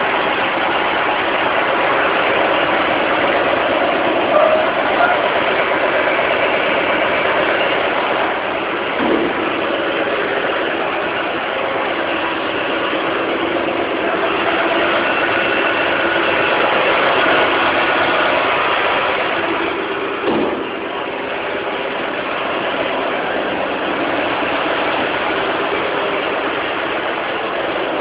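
Claas 860 harvester's 14.6-litre Mercedes twin-turbo V8 diesel idling steadily while still cold from a cold start.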